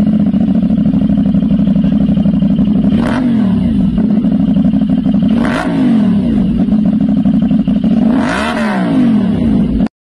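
CFMoto 450SR's parallel-twin engine idling steadily, blipped three times with quick throttle revs that rise and fall, about three, five and a half, and eight and a half seconds in. It cuts off abruptly just before the end.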